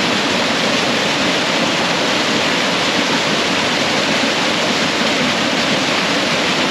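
Small waterfall pouring down a rock face into a pool: a steady rush of falling water.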